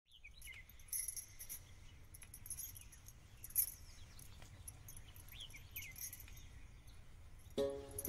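Faint outdoor background: a low rumble with a few short, high, falling chirps and scattered light ticks. Near the end, music with a steady beat comes in.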